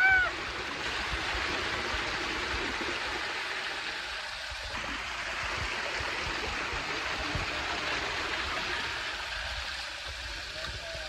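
Small waterfall pouring into a shallow rock pool: a steady rush of falling water.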